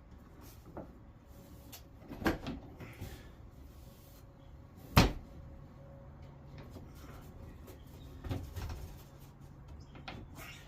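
Scattered knocks and clunks of wooden pieces and tools being handled. The loudest is one sharp knock about five seconds in, with softer ones about two seconds in and again near the end.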